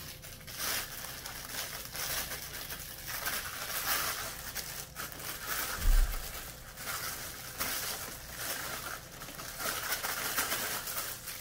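Plastic packaging crinkling and rustling while a cardboard shoe box is handled and opened, with one dull thump about six seconds in.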